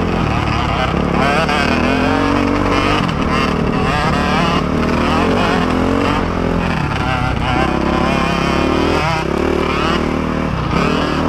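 Dirt bike engine running under load on a trail, its note rising and falling again and again with throttle and gear changes, close to the rider.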